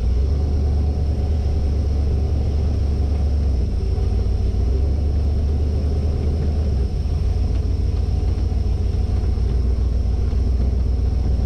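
1972 Winnebago Brave motorhome under way, heard from inside the cab: a steady low rumble of engine and road noise.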